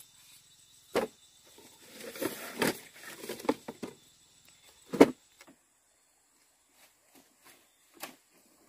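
A few sharp knocks or clatters, the loudest about five seconds in, with a run of lighter knocking and scraping between about two and four seconds.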